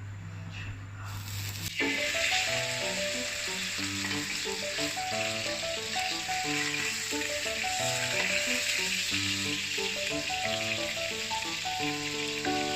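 Chicken breast frying in hot sunflower oil, a dense sizzle that starts suddenly about two seconds in as the meat goes into the pan, then keeps going. Background music with short stepping notes plays along.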